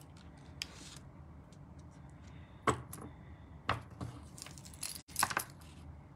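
Cardstock and die-cut paper pieces being handled and pressed down on a craft mat: a few sharp taps and papery rustles, with a short cluster of them about two-thirds of the way in.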